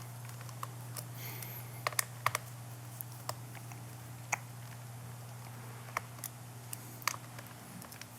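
Scattered light clicks and taps of a small screwdriver and screws being handled against a laptop's plastic chassis, irregular and uneven in loudness, over a steady low hum.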